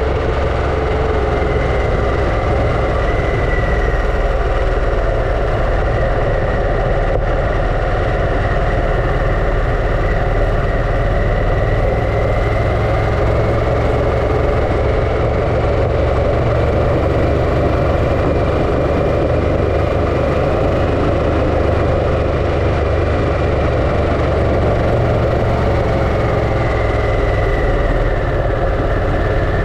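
Harley-Davidson Pan America's Revolution Max 1250 V-twin running steadily under way, its pitch drifting gently up and down with small changes in speed.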